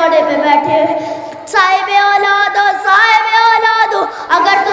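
A boy's solo voice chanting a Shia mourning lament (noha) in long, held, wavering notes, with short breaths between phrases.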